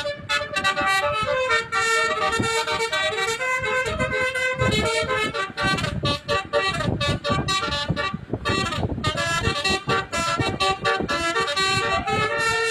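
A bus's basuri musical air horn (telolet) playing a tune, several horn tones sounding together and stepping from note to note.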